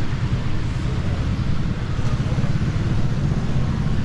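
Street traffic: engines of passing motor vehicles, motorcycles among them, running close by as a steady, loud rumble.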